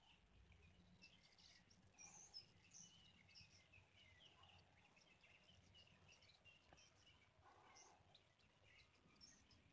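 Faint, scattered chirps of small birds over quiet open-air background.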